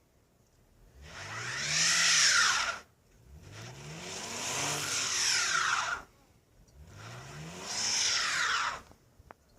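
A car stuck in snow, its engine revved three times with the drive wheels spinning on snow and ice. Each spin rises in pitch and then falls away.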